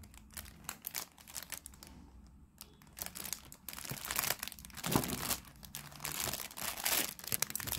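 Plastic cookie-pack wrappers crinkling as the packs are picked up and moved. The crackle is sparse at first and gets busier from about halfway through.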